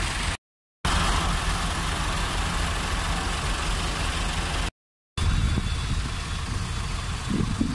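Tractor diesel engines idling in a steady low run. The sound drops out completely for a split second twice, at the joins between edited clips.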